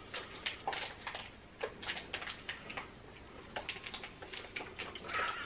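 Crunchy biscuit being bitten and chewed: irregular crisp clicks and crunches.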